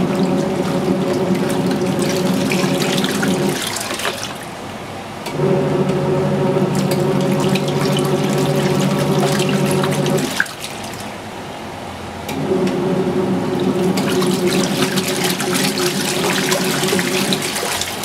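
Kuppet twin-tub portable washer's wash tub agitating a load of bedding. The pulsator motor hums in spells of about five seconds and stops twice for about two seconds, as the wash cycle switches direction. Water sloshes and splashes the whole time.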